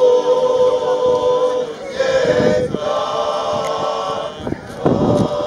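Male klapa group singing a cappella in close harmony, holding long chords, with a short break between phrases about two seconds in and again near the end.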